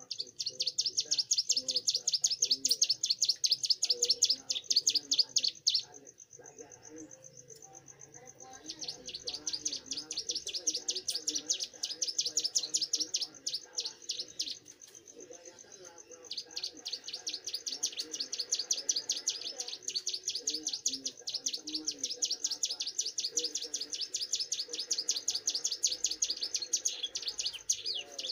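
Young prenjak gunung (a prinia) singing in its cage: long bouts of rapid, evenly repeated high ticking notes, with three bouts separated by short pauses.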